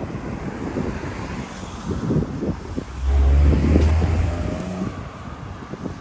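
Wind buffeting the microphone in uneven gusts. About three seconds in, a motor vehicle passes close with a loud engine drone that fades away by about five seconds.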